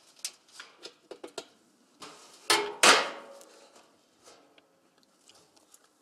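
Sheet-metal animal feeder handled and knocked together: a few light clicks and taps, then two loud metal clanks about two and a half seconds in, a third of a second apart, ringing briefly.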